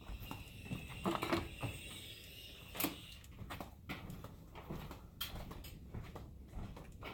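Irregular clicks, taps and knocks of a pneumatic rivet gun being handled and worked on to clear a fault, the loudest knocks about a second in and just before three seconds.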